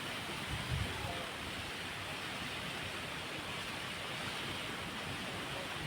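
Steady rush of heavy rain and strong wind, with a couple of faint low thuds of wind on the microphone a little under a second in.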